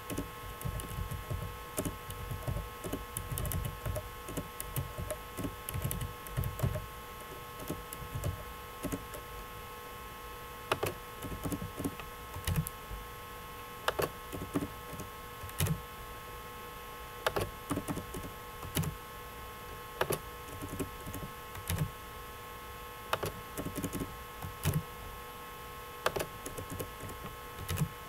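Computer keyboard keys and mouse clicks, irregular and sometimes in quick clusters, during text editing on a computer, over a steady background hum.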